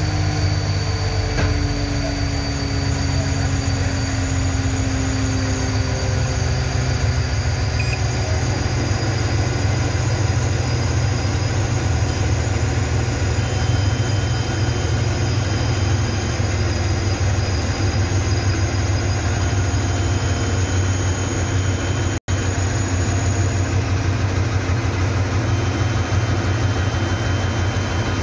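Heavy vehicle engine running steadily with a deep, even hum. A faint tone slides downward over the first few seconds, and the sound cuts out for an instant about 22 seconds in.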